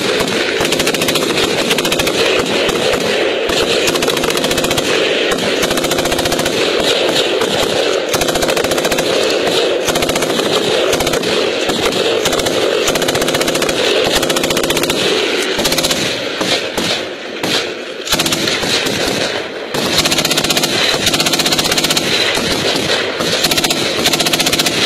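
Bipod-mounted belt-fed machine gun firing long, continuous bursts of rapid automatic fire, with a few short breaks about two-thirds of the way through.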